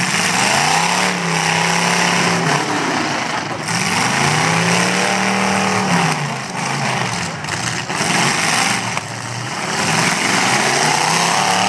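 Demolition derby pickup engines revving hard three times, each rev rising in pitch, holding, then dropping back, as the locked-together trucks push against each other.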